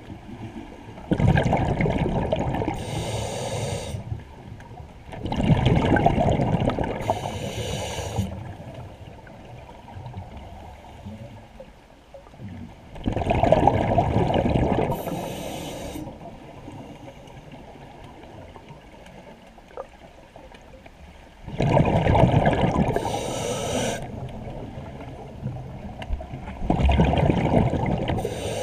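Scuba diver breathing through a regulator underwater: five breaths a few seconds apart, each a burst of hissing and bubbling, with quieter water noise between.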